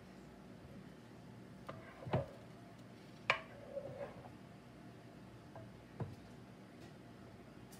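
A handful of light knocks and clatters, loudest about two and three seconds in and again near six seconds: a plastic measuring cup knocking against a frying pan as pancake batter is poured from it and the cup is taken away.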